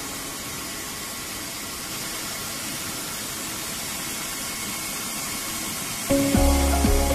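A steady, even hiss with no tone in it. About six seconds in, background music with a deep bass line comes back in over it.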